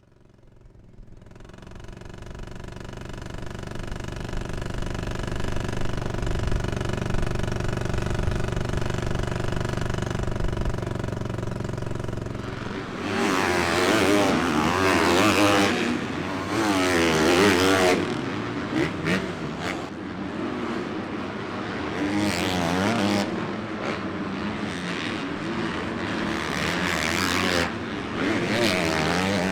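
Dirt bike engines: a steady engine drone fading in, then from about halfway through several engines revving up and down with wavering pitch.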